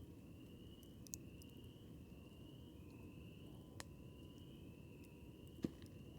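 Faint campfire crackling: three sharp wood pops, the loudest near the end, over a low steady hiss. An insect calls in the background in short, slightly rising phrases about once a second.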